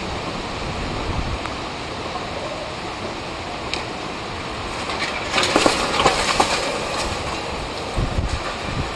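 Hurricane wind and driving rain in a steady rush. A little past halfway there is a louder burst of metallic rattling and squealing from the torn sheet-metal awning being worked by the wind.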